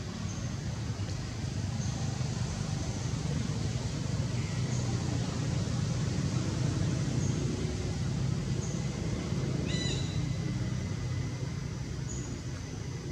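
Steady low outdoor rumble, with short faint high chirps every second or two and one brief call that rises in pitch about ten seconds in.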